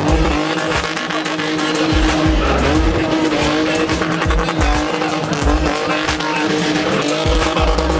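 Car engine held at high revs while the car spins in circles, its tyres squealing and skidding. Music with deep bass thumps plays along with it.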